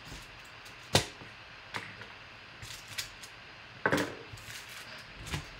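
Hard plastic trading-card holders set down one by one on a tabletop: a series of sharp clacks, the loudest about a second in and a double clack near four seconds.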